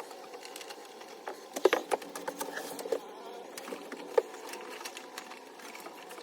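Light clicks and knocks of hand work on parts and tools, scattered irregularly, the sharpest about a second and a half in and about four seconds in, over a faint steady hum.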